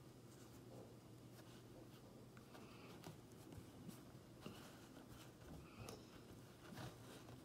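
Near silence: faint soft rustling and light clicks of hands squeezing and crumbling kinetic sand, over a faint steady low hum.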